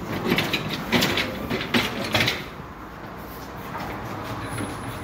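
Metal bakery rack trolley loaded with bread rattling and clanking as it is handled, in a quick run of strokes over the first couple of seconds. After that comes a quieter, steady background noise.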